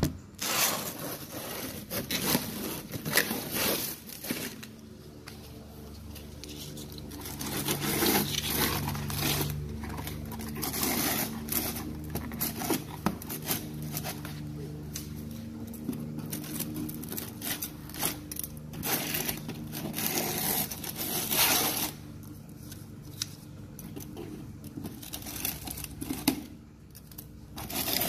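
A cardboard parcel being opened by hand: packing tape torn and peeled off, cardboard flaps and paper stuffing rustling and scraping in repeated bursts, and scissors cutting tape near the end. A steady low hum runs underneath.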